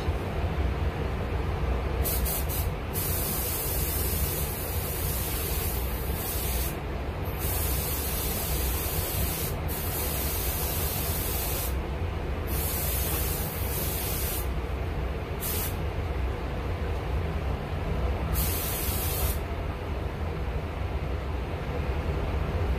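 Spray gun applying Cerakote coating, hissing in repeated passes of one to four seconds with short breaks, stopping a few seconds before the end, over a steady low hum.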